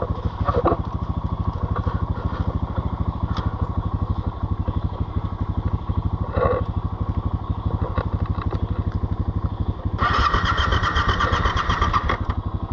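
Yamaha Ténéré 700's parallel-twin engine turning over with a steady, rapid pulsing beat. It grows louder and brighter about ten seconds in.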